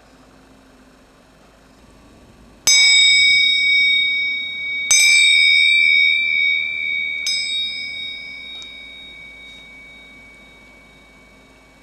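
Small cast bell of bell bronze (80% copper, 20% tin), about 9 cm high, struck three times about two seconds apart, each strike ringing on with a clear high tone and a few higher overtones that fade slowly.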